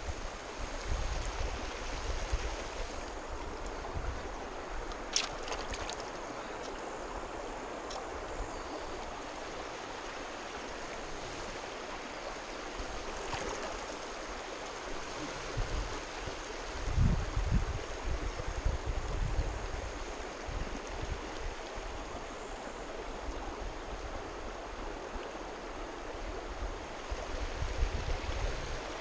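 Shallow creek water running steadily over rocks, with a few low rumbles at times and a brief click about five seconds in.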